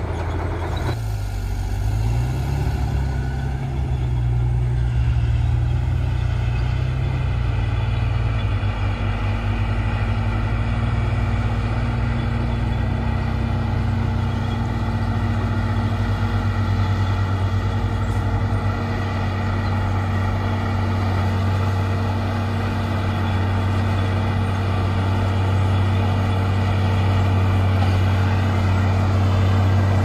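Heavy diesel engine of earthmoving machinery running steadily with a deep, even hum. It revs up slightly a few seconds in, then settles back to a steady run.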